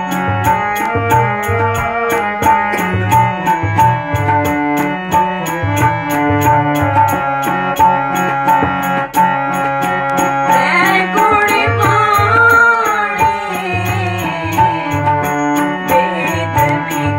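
Harmonium holding steady chords and tabla keeping a steady rhythm, playing Gurbani kirtan. A woman's voice comes in singing over them about ten seconds in and drops out shortly before the end.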